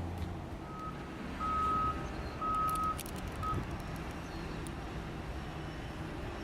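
Reversing alarm on a construction vehicle beeping four times, about once a second, over a continuous low rumble of site machinery.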